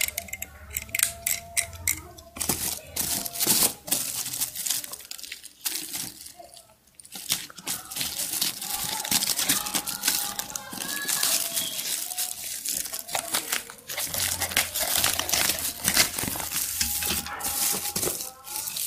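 Plastic wrapping and packing tape on a parcel crinkling and tearing as a utility knife slits it open, with many quick crackles. The sound eases briefly about a third of the way in, then resumes.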